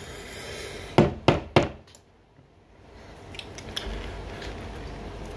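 A stuck jar lid being gripped and twisted by hand, with three sharp knocks about a second in, then faint handling and rubbing sounds.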